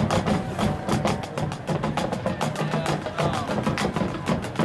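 Marching percussion playing a fast, even rhythm: a rapid run of sharp taps and clicks over lower drum tones.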